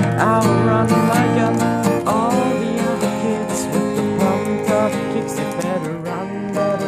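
Acoustic guitar being strummed in a steady rhythm, with a voice singing along.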